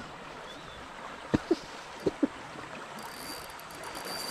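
Steady rush of a shallow river running over rocks. Four short low thumps come in two quick pairs in the middle, and a faint high steady whine comes in near the end.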